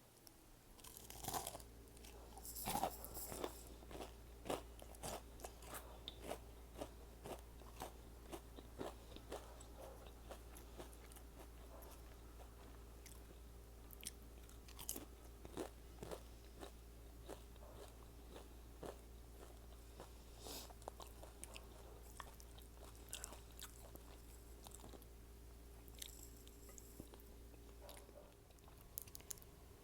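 Close-miked crunching bites into crisp tempura-battered shrimp, loudest in the first few seconds, then steady chewing with small crunches about once a second. A faint low hum runs underneath and drops away near the end.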